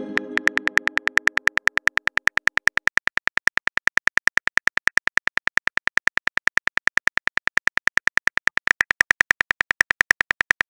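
Phone-keyboard typing sound effect: a steady, rapid train of even clicks, about eight a second. A pitched tone at the start fades out over the first second and a half.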